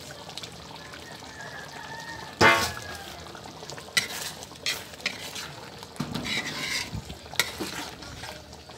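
Metal ladle stirring a simmering pork stew in a large aluminium wok, knocking and scraping against the pan several times; the loudest knock is about two and a half seconds in. The sauce sizzles softly underneath.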